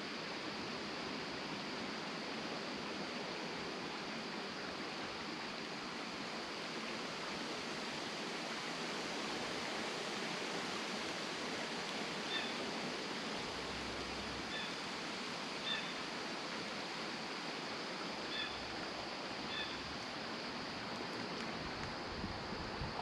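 Steady rush of a creek running in a wooded ravine. A handful of short high chirps come through it in the second half.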